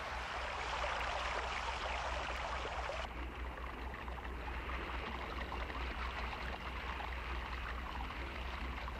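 Water running down a small woodland waterfall: a steady rushing hiss of falling water, which turns a little duller about three seconds in.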